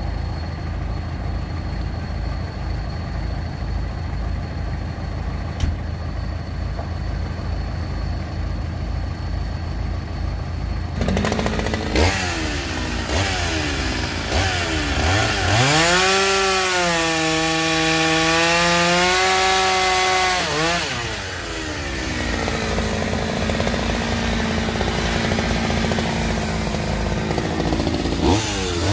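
A tractor's diesel engine idling with a low pulsing rumble. About eleven seconds in a two-stroke chainsaw comes in, revs up and runs steadily under load for several seconds as it cuts into the end of an upright log, then drops back to idle and revs up again near the end.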